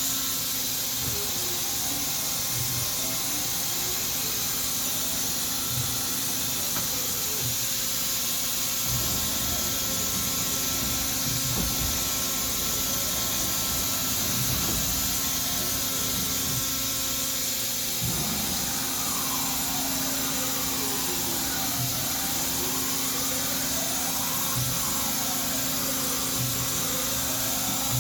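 2005 OKK HP500S CNC horizontal machining center rapid-traversing its axes with the spindle running: a steady machine hum and hiss, with the axis servo motors whining up and down in pitch as each move speeds up and slows down, most clearly in the second half.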